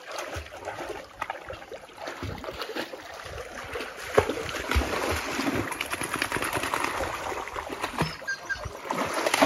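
Shallow creek water splashing and sloshing as two Cane Corso dogs wade and plunge through it, with irregular splashes that grow louder from about four seconds in.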